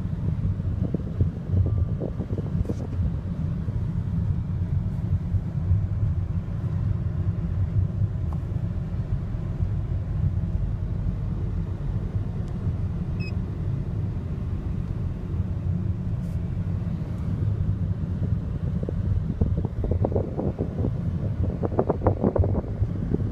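Steady low road and engine rumble inside the cabin of a taxi driving through city traffic, with a rougher, louder stretch near the end.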